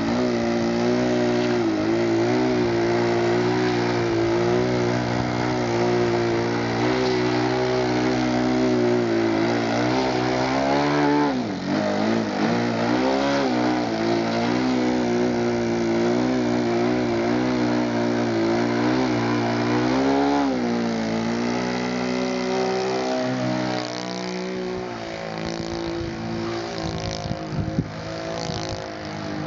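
Wrong Way RC Slide 58 aerobatic model plane's motor and propeller drone steadily while it hovers nose-up. The pitch drops and comes back up about 11 seconds in and again near 20 seconds. The sound grows fainter near the end as the plane climbs away.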